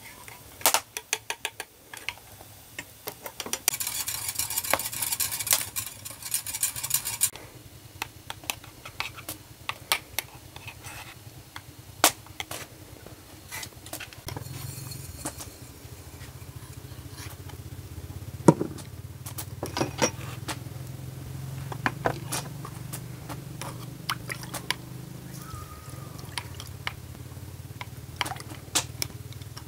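Dishes and utensils clinking and knocking during food preparation. A few seconds of rushing noise come about four seconds in, and a steady low hum sets in about halfway through.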